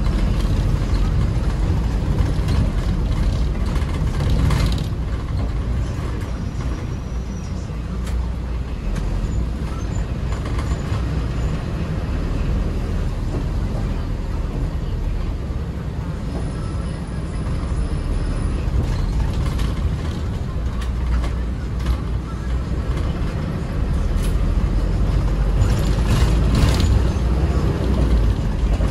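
Toyota Coaster Euro 6 minibus on the move, heard on board: a steady low engine and road rumble, with a few brief louder rattling, hissing swells.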